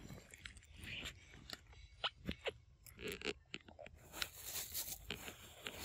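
Rapid, irregular wet clicks and smacks from a baby monkey's mouth as it suckles at its mother's teat.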